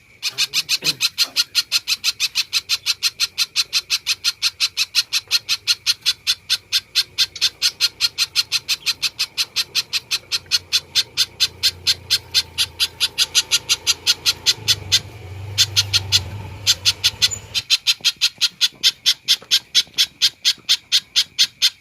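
Spiderhunter (pijantung) calling a long, rapid, evenly spaced series of sharp chips, about four a second. The rhythm turns uneven for a couple of seconds past the middle, while a low hum rises underneath.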